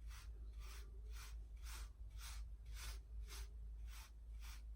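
Bristles of a medium-hard hair brush tapping on short hair, faint regular strokes about two to two and a half a second, over a low steady hum.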